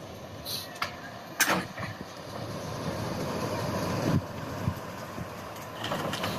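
Short diesel-hauled train of old wooden carriages rolling slowly: a steady low rumble broken by a few sharp metallic clanks.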